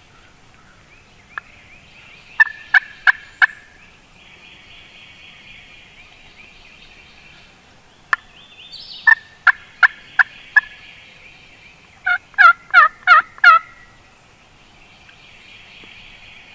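Turkey calling: three loud series of sharp, clipped yelp-like notes, about three notes a second. The first comes about two seconds in, the second near the middle, and the last, more wavering series near the end.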